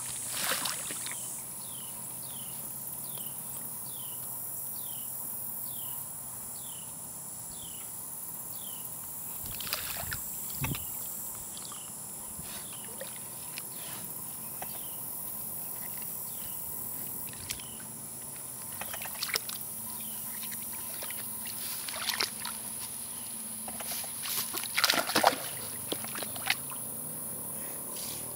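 A capybara moving in water, sloshing and splashing: a few splashes about ten seconds in, more around twenty seconds, and the loudest run of splashes near the end as it jumps into a plastic wading pool.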